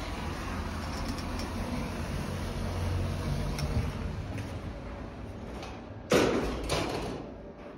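A steady, low vehicle rumble with noise over it, swelling about three seconds in. Two sharp clunks come about six seconds in, a little over half a second apart, and then the rumble fades.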